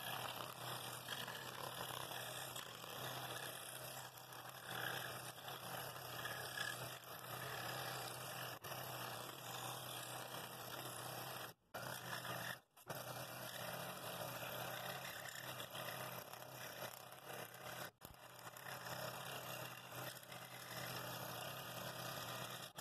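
Scroll saw with a No. 3 blade cutting thin 3/16-inch wood, probably aspen: a steady rasp of the reciprocating blade over the motor's hum as the piece is fed along curved lines. The sound drops out abruptly and briefly twice near the middle and once about three-quarters of the way through.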